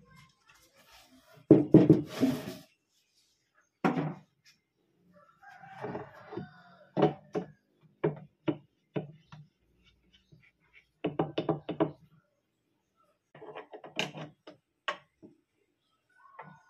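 A wooden fence bar is scraped along and knocked into place on a homemade wooden table-saw top: one scrape, then clusters of short hollow wooden knocks.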